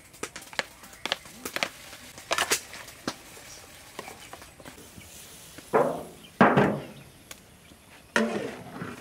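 A kitchen knife slicing through a block of tofu, its blade clicking lightly against the plastic tray. It is followed by three louder knocks, each fading quickly, about six, six and a half and eight seconds in.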